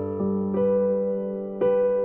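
Background music: a slow keyboard piece in a piano-like sound, with sustained notes and new notes struck about half a second in and again near the end.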